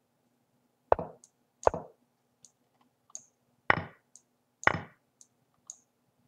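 Move sounds of an online chess board: four sharp wooden knocks as pieces land, the moves coming about a second or two apart. Fainter high mouse clicks fall between them.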